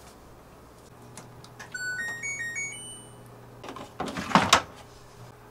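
Front-loading washing machine's short electronic power-on chime, a little melody of beeps stepping up in pitch about two seconds in, then the plastic detergent drawer being pulled open with a sliding clatter, the loudest sound, near four seconds in.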